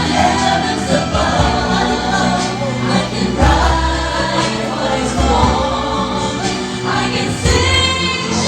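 A song playing, with sung vocals and a choir backing over a steady bass line.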